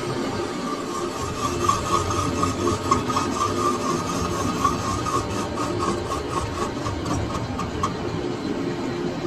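Lathe turning the bearing journal of a forage harvester rotor, the bladed rotor spinning between centres and the cutting tool scraping the metal. A steady running noise, with a rapid, even ticking from about a second and a half in until near the end.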